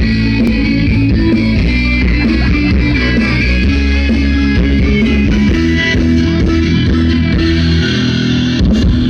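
Loud rock music without vocals: electric guitar over bass and drums, with the low bass dropping out near the end.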